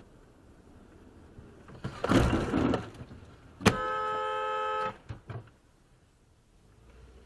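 Car horn sounded in one steady blast of about a second, at a car cutting in close ahead, with a loud rough burst of noise about a second before it.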